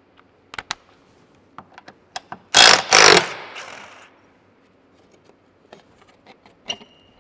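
Cordless impact wrench hammering in two short bursts about two and a half seconds in, undoing a shear plate bolt on the underside of a Tesla Model S. Small clicks and clinks of the tool and bolts come before and after.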